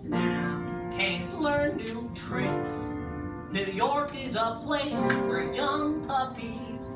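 Show-tune singing by two men, with piano accompaniment.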